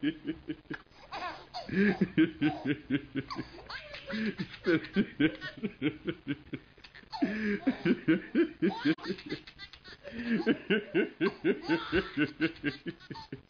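A man laughing hard and long, in runs of quick, rhythmic "ha" pulses with a few short breaks.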